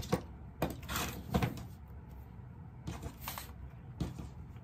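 Quilting ruler and fabric being shifted and handled on a cutting mat: a handful of short rustles and clacks, the longest around one and three seconds in.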